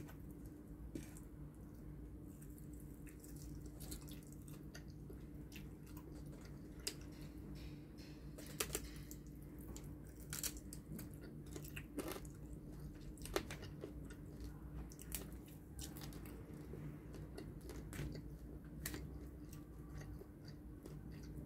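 Close-up chewing and biting of fried chicken, its skin charred from frying: soft, scattered crunches and mouth clicks over a steady low hum.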